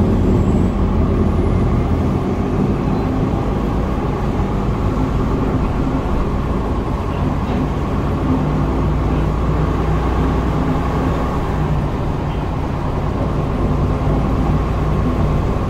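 Inside a moving shuttle bus: a steady low engine and road rumble with a faint hum.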